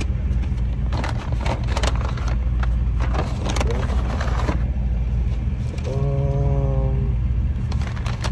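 Stopped car's engine idling with a steady low rumble, its exhaust fitted with an aftermarket muffler, while papers and the car's interior are rummaged through during the first half.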